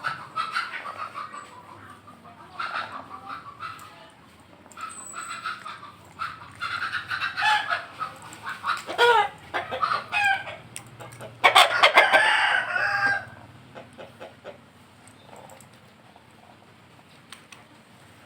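Chickens clucking and calling in a series of separate calls, with a rooster crowing loudly about twelve seconds in.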